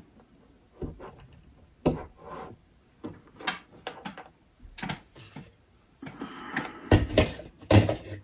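Handling clicks and knocks as a wire connector is pushed onto a small sealed lead-acid battery's terminal and the power lead and plastic fish finder unit are handled on a wooden table. A short rustle comes about six seconds in, then two louder knocks near the end as the fish finder on its mount is picked up.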